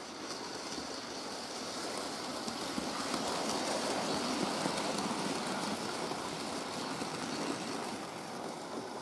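OO-gauge model goods train running past on the layout: a steady rolling rumble of wheels on the track that swells to its loudest about halfway through and fades again as the vans go by.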